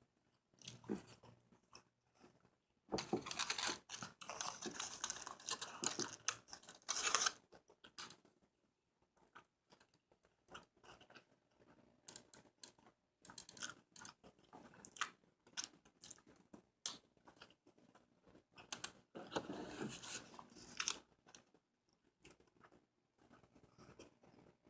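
A person chewing and biting into a burger, faint wet mouth clicks and crunching, heavier in two stretches about three seconds in and again near twenty seconds in.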